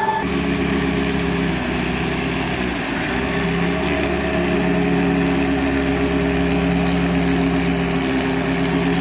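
Tractor engine running steadily, its pitch dipping briefly about three seconds in.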